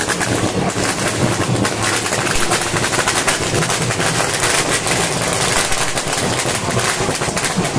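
A long string of firecrackers going off in the street: a rapid, dense crackle of many small bangs, with no break.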